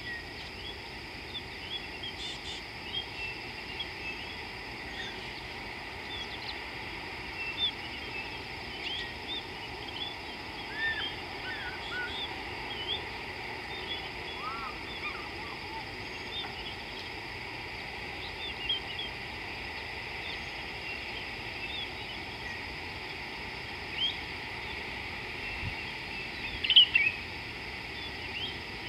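Many small birds chirping and calling over a steady high hiss, with a few lower, arching whistled calls along the way and a louder cluster of chirps near the end.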